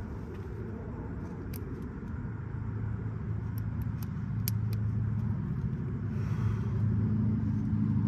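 Low, steady engine hum of a running motor vehicle, growing louder over the last few seconds, with a few light clicks of small parts being handled.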